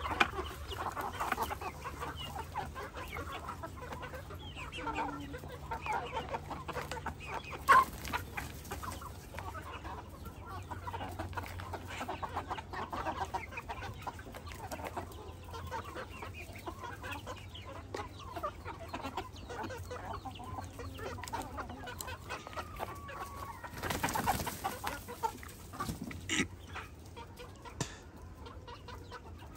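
A flock of Thai gamefowl chickens clucking and calling softly, many short overlapping calls throughout. A sharp knock comes about eight seconds in, and a brief rush of noise comes near the end.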